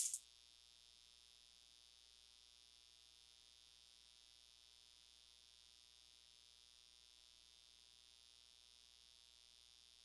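Near silence after the music cuts off at the very start: only a faint, steady electrical hum and hiss from the recording chain.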